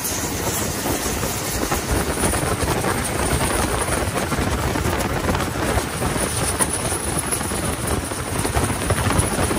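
Turbocharged car engine of a longtail racing boat running hard at speed, a loud, steady din mixed with rushing water from the wake and wind on the microphone.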